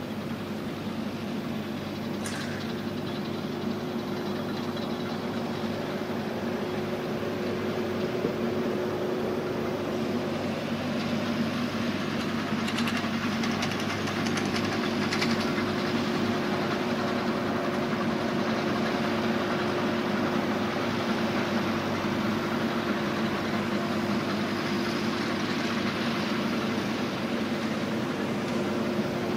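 Fendt 415 Vario tractor's four-cylinder diesel engine running steadily under load while it pulls a Krone Comprima V150 XC round baler picking up and baling lucerne, the baler's machinery running along with the engine. The sound grows slightly louder as the tractor comes closer.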